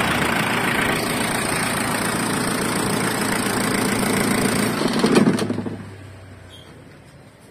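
Ford Everest's diesel engine idling, then switched off about five seconds in, with a brief swell as it shuts down before running down to quiet.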